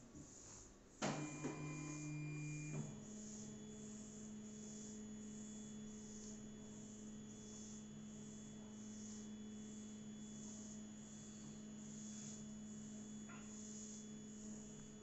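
Low steady electrical hum, with a sharp click about a second in and a faint high hiss pulsing about one and a half times a second.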